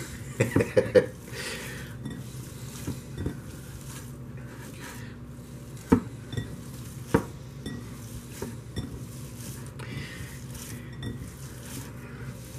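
Ground-beef meatball mixture being mixed by hand in a bowl, with the bowl knocking and clinking as it is worked. There is a quick run of knocks in the first second, then two sharper ones about six and seven seconds in.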